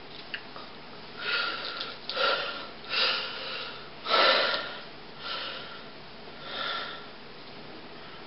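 A person's noisy breathing close to the microphone: six short breaths, roughly a second apart, the fourth the loudest.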